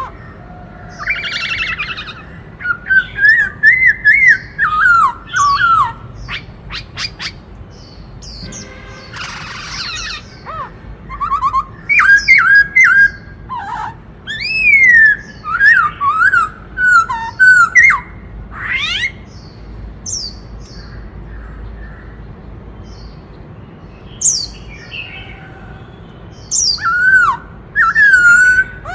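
White-cheeked laughingthrush singing: loud bursts of rapid, gliding whistled phrases mixed with sharp clicks and short harsh rasping notes, with a few seconds' lull after the middle.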